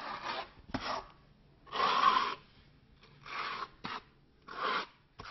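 A flat knife scraping along Kerdi waterproofing membrane, pressing it into wet thinset and squeezing the mortar out from behind it. It comes as a series of short scraping strokes, about one every second and a half.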